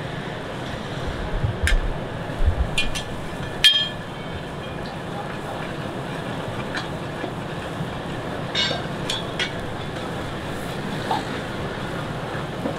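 A metal ladle clinking and scraping against a steel karahi several times, loudest about four seconds in, over a steady din of a street-food kitchen with gas burners running.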